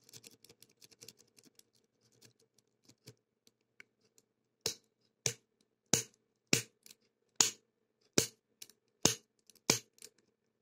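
Homemade snap-breaker lockpicking tool snapping against the pin stack of a CITY ISEO 60 mm padlock: faint small clicks at first, then from about four and a half seconds in a regular run of about eight sharp snaps, roughly one every two-thirds of a second, working to jolt the pins to the shear line.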